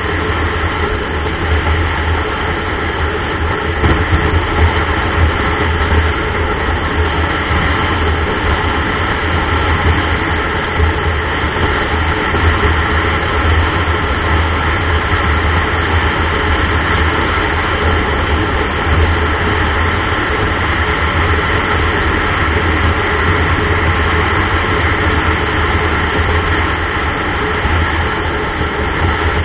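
Steady driving noise of a vehicle cruising on a highway, heard through an onboard camera: a constant low rumble of engine, tyres and wind, with no change in pace.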